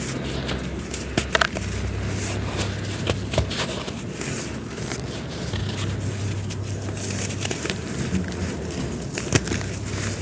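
Dry, crumbly material being crushed and broken apart by hand, with scattered crisp cracks and crackles over a low steady hum.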